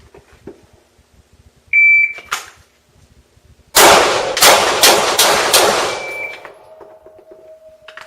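A shot timer's high start beep, then about two seconds later five quick pistol shots in under two seconds, echoing off the range, with a fainter timer beep after them. It is a timed five-shot string against a 4-second par time.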